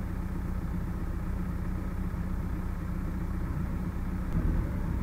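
Massey Ferguson 375 tractors' diesel engines running steadily with a low drone, swelling slightly about four seconds in.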